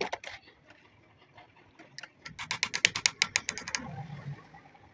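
Metal hand-tool work on a starter motor armature: a couple of sharp clicks, then from about halfway in a rapid, even run of sharp metallic clicks, roughly ten a second, lasting about a second and a half.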